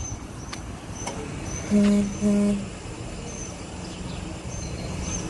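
Two short car-horn beeps, one right after the other, about two seconds in, over steady street background noise with small birds chirping again and again.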